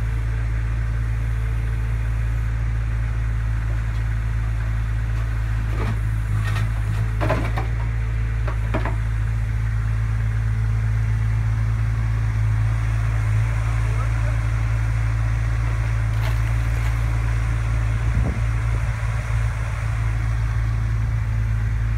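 JCB mini excavator's diesel engine running steadily with a constant low hum while the boom and bucket are worked.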